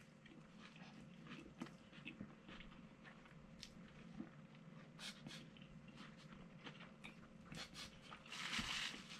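Faint chewing and mouth sounds of a person eating a fried chicken sandwich, with scattered small clicks. A soft rustle comes near the end.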